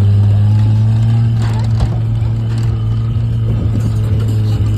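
Steady low hum of a running engine, holding one pitch with no revving.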